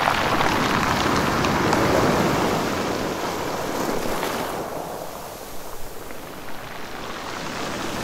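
Sea waves on a rocky beach: a wave washes in with a fizzing, crackling hiss of foam over the rocks, then draws back and quietens about halfway through.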